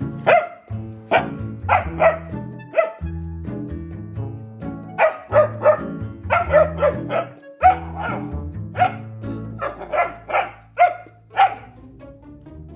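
German Shepherd puppy barking at cats in sharp, high barks, about twenty in all, coming in quick bunches of two to four, with a pause about three seconds in and stopping shortly before the end. Background music with a repeating bass line plays underneath.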